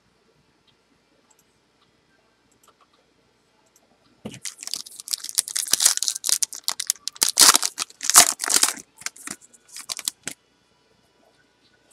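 Foil trading-card pack wrappers crinkling and tearing as packs are ripped open by hand. A dense stretch of crackling starts about four seconds in and stops about ten seconds in.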